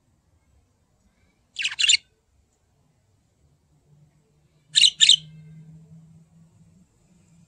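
Budgerigars chirping: two quick double chirps, one about one and a half seconds in and another about five seconds in.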